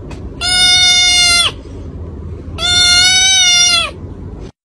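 Kitten wailing loudly twice, each call a long flat-pitched scream of a little over a second that drops in pitch at its end.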